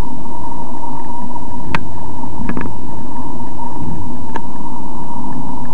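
Car driving, heard from inside the cabin through a dash-mounted action camera's microphone: a loud, steady rumble of road and engine noise with a constant whine. A few sharp clicks come around two seconds in and again around four seconds in.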